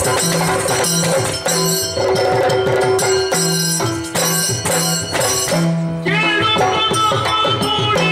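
Yakshagana percussion, with the chende and maddale drums playing a fast, dense pattern for a dance passage. About six seconds in, the drumming thins and a high melodic line enters over it.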